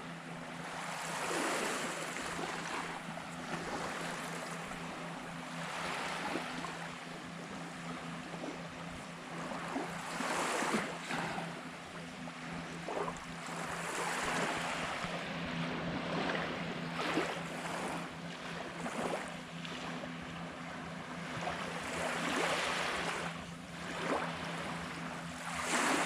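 Small surf waves washing up on a sandy beach, the rush of water swelling and fading every few seconds, over a steady low hum.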